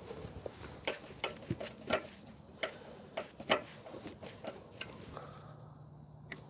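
Irregular light clicks and taps, about a dozen in a few seconds, from small parts and tools being handled while fitting hoses on a motorcycle. A low steady hum starts about five seconds in.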